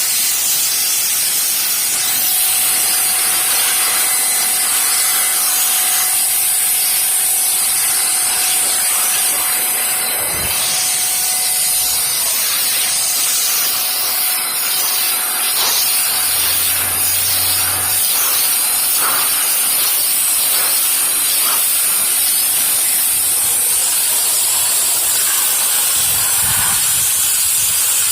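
Sun Joe SPX6001C-XR 40-volt cordless pressure washer spraying a high-pressure water jet: a steady, loud hiss of spray.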